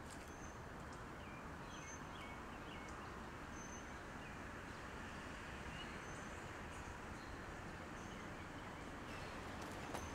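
Outdoor ambience: a steady, faint rushing background with short, high bird chirps repeating about once a second and a few lower chirps scattered between them.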